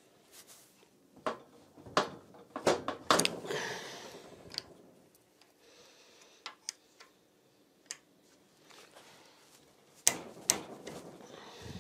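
Hand tools clicking and knocking on the cylinder head nuts of a TGB 50cc scooter engine as the head is being unbolted. Irregular sharp metallic clicks, loudest about two seconds in and again near the end, with short rattles after some of them.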